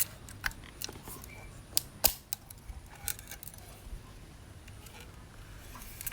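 Scattered small clicks and taps from a Praktica Nova ER film camera being handled, the loudest two close together about two seconds in.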